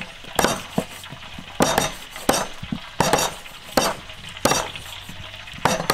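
Cleavers chopping eel on thick wooden chopping boards: sharp, irregular chops, roughly one or two a second, from several people working at once.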